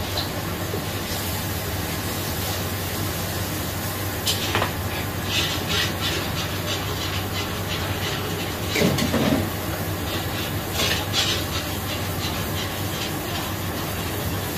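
Commercial restaurant kitchen at work: a steady rushing hiss with a low hum under it, broken by scattered clinks and clatters of metal utensils, loudest about nine and eleven seconds in.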